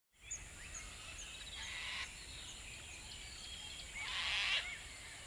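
Outdoor nature ambience of birds calling: scattered short chirps and two louder, rougher calls about two and four seconds in, over a steady background hiss.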